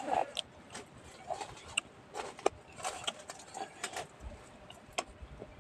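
A person sipping and slurping from a steel bowl, with irregular lip smacks and small clicks.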